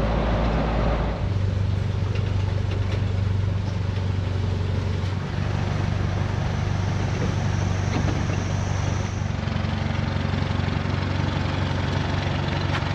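A motor vehicle's engine running steadily while on the move, a low even hum with road and wind noise; the hum changes about a second in.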